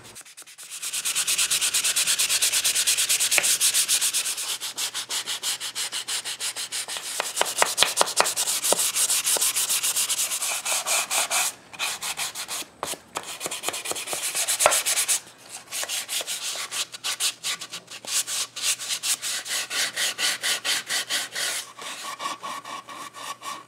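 Hand sanding with 220-grit sandpaper on the finished wood of a small clock case: quick back-and-forth scratchy strokes, pausing briefly a couple of times midway.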